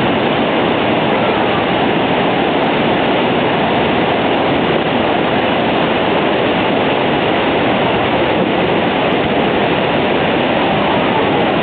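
Steady roar of Niagara Falls, a massive volume of plunging water heard up close from a boat in the spray, an even rushing noise without letup.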